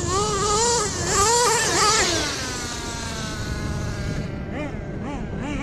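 Kyosho USA-1 RC monster truck's nitro engine revving up and down in quick surges, then falling in pitch as it slows around two seconds in, before revving in quick surges again near the end. A low wind rumble runs underneath.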